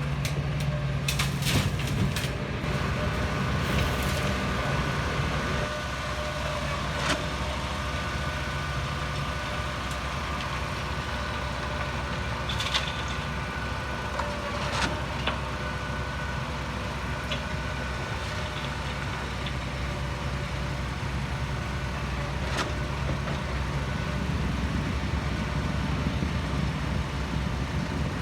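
Heavy diesel construction machinery running steadily, with scattered sharp metallic clanks and knocks.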